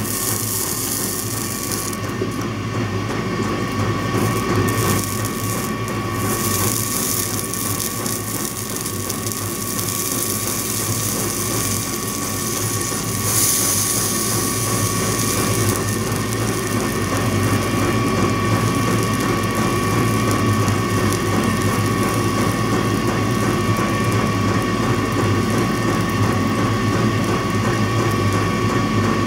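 A small machine running steadily with a constant whine over a dense whirring noise, getting a little louder over the first few seconds.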